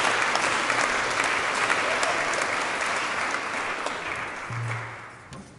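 Audience and performers applauding, a dense crackle of clapping that dies down over the last second or two before the recording cuts off.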